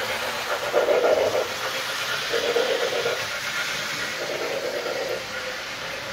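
Model steam locomotive's onboard sound system blowing its steam whistle in three blasts about a second and a half apart, over a steady steam hiss. The locomotive is an MTH Rail King Decapod 2-10-0.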